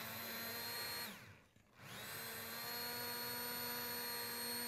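Handheld immersion blender's motor running in a pot of squash soup, pureeing it. About a second in it is switched off and winds down, then it starts again a moment later and runs steadily.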